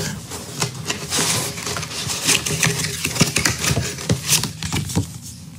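Cardboard meal-kit box and its printed card sleeve being handled: irregular rustling and scraping with many light taps and knocks.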